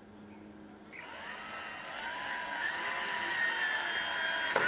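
Cordless drill driving a screw through a stainless saddle into a timber post. The motor starts about a second in and runs with a steady whine that grows louder as the screw goes in.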